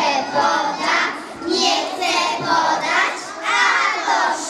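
A young girl's voice through a microphone in short phrases with brief pauses between them, reciting or chanting in a sing-song way.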